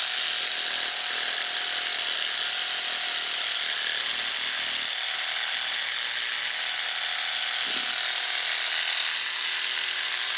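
High-speed rotary tool running steadily, with a constant whine, driving a Dremel jigsaw attachment that strokes a small coarse round rasp back and forth in a filing cut.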